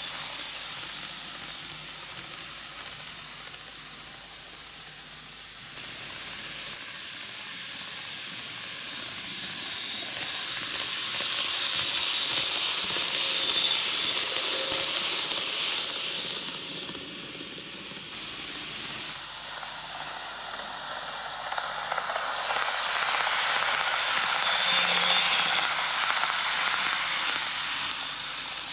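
KATO N-gauge E4 Series Shinkansen model train running on TOMIX superelevated track: a steady hiss of the wheels and running gear on the rails, growing louder twice as the train comes round close by.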